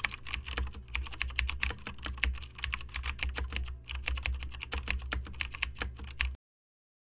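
Typing sound effect: rapid, irregular keystroke clicks over a steady low hum. It accompanies on-screen text being typed out, and cuts off suddenly about six seconds in.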